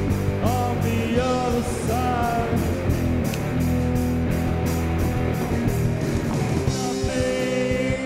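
Space-rock band music: electric guitars over a steady beat, with a cymbal ticking about three times a second and a bending melodic line above.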